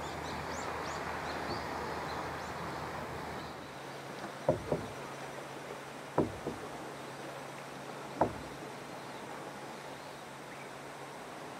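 Faint steady background noise of calm open water, then short sharp knocks on a small fishing boat: two close together a little before halfway, two more about a second and a half later, and a single one about two-thirds of the way in.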